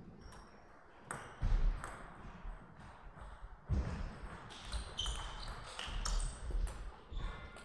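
A table tennis rally: the ball clicking off the bats and bouncing on the table in quick succession, with low thuds of the players' feet on the court floor, ending near the end.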